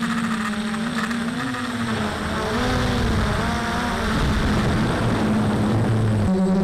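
Quadcopter's electric motors and propellers whirring in flight, the pitch wavering up and down.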